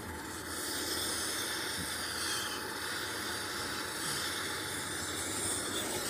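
Brazing torch flame hissing steadily as it heats a copper refrigerant line for silver-solder brazing.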